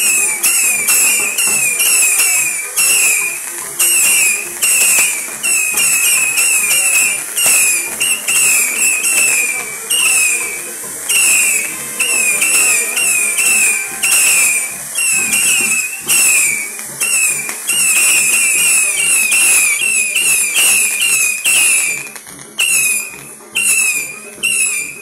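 Spinning firework wheels on a burning pyrotechnic castle tower, whistling and hissing: a shrill whistle that falls in pitch over and over, two or three times a second. Near the end it turns patchy and weaker as the wheels burn down.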